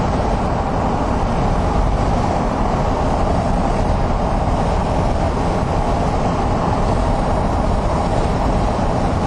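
Steady road and engine noise of a car driving at speed on a wet road.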